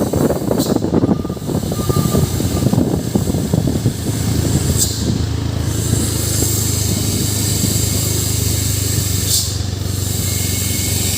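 Heavy truck's diesel engine running: rough and loud for the first few seconds, then settling into a steady low drone. Three short sharp hisses of air about half a second, five and nine seconds in.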